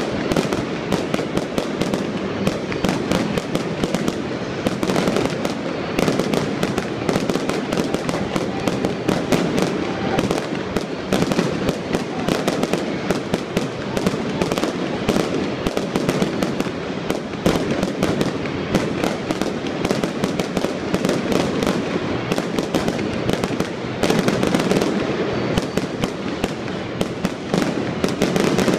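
Fireworks display: a rapid, unbroken barrage of bangs and crackling bursts.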